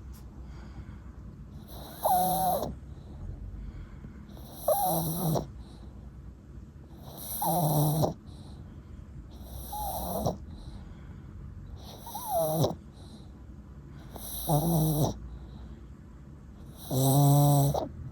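Yorkshire terrier snoring, seven snores about every two and a half seconds, each with a whistly tone that slides in pitch. The last snore, near the end, is the loudest.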